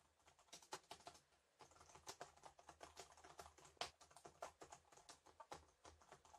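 Typing on a Jelly Comb full-size wireless keyboard with round keycaps: a quick, irregular run of soft key clicks, quiet for a keyboard.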